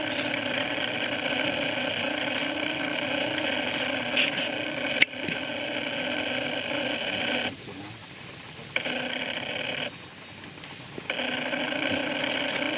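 Steady machine hum made of several even tones. It cuts out twice for about a second each, and there is a sharp click about five seconds in.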